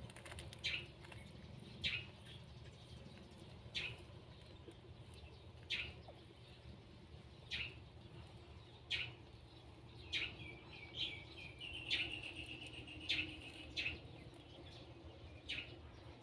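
Small birds chirping: short, high chirps every second or two, with a quicker run of chirps about two-thirds of the way in, over a low, steady hum.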